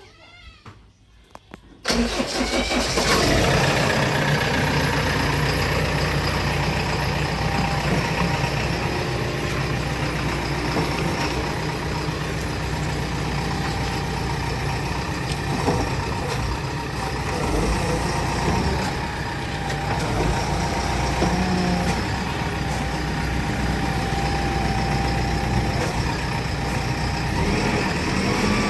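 Heavy diesel engine running steadily, cutting in abruptly about two seconds in after near quiet.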